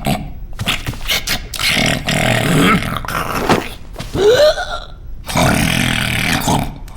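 A cartoon character's wordless vocal noises, burp-like grunts and gurgles, mixed with cartoon sound effects, in a quick series of short bursts with a rising squeal about four seconds in.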